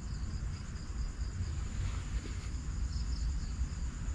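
Night crickets chirring steadily in high, pulsing tones, over a continuous low rumble.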